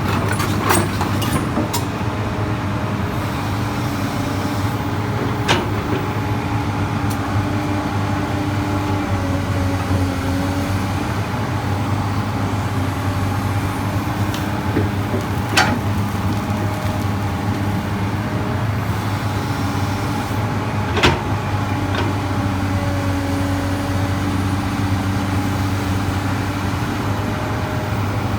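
Komatsu PC200 excavator's diesel engine running steadily under digging load, its hydraulics giving whining tones that shift in pitch as the arm and bucket move. There are three sharp knocks, about five, fifteen and twenty-one seconds in.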